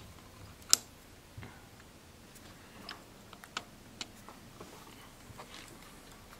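Scattered sharp metal clicks and light taps of a diesel injector copper-washer puller being worked in the injector bore, with one louder click under a second in.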